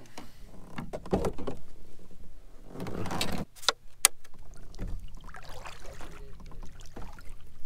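Kayak paddle strokes in very shallow water: irregular swishes and splashes of the blades, the loudest about three seconds in, with two sharp knocks shortly after.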